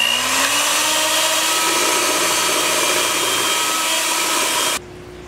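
Electric hand mixer running steadily, its beaters whipping egg yolks in a stainless steel bowl. Its whine rises slightly in pitch in the first second, then holds. The motor cuts off abruptly near the end.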